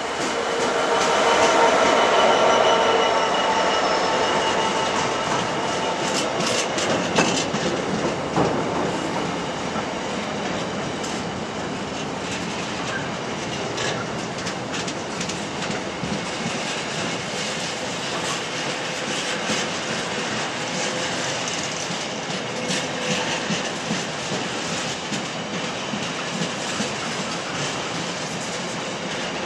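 A train rolling through, its wheels clicking over the rail joints for the whole stretch. It is loudest in the first few seconds, with steady high tones from the wheels.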